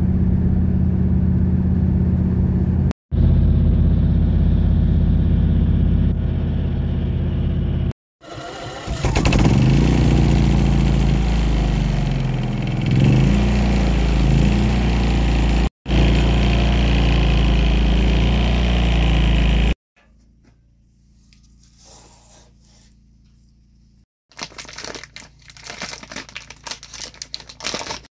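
Several cut-together sounds: car engine and road noise while driving, then a portable inverter generator running, its pitch rising and falling before it settles into a steady low hum. After a quiet stretch, paper and plastic packaging crinkle near the end.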